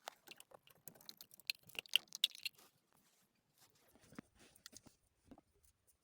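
Light clicks and rattles of small parts being handled, a quick run of them in the first two and a half seconds, then a few scattered ticks. These are the sounds of refitting wiring connectors and parts under the steering column during reassembly.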